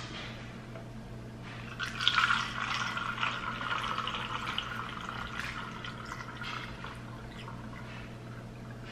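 Rice water poured from a pitcher through a fine mesh strainer into a filter cone, splashing and trickling. The pour starts about two seconds in and thins to a trickle toward the end.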